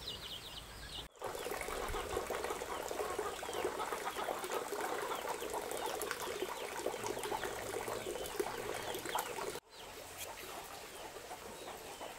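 Farmyard poultry chirping and cheeping over a dense crackling noise. The crackle sets in sharply about a second in and stops abruptly near the end, where the sound changes.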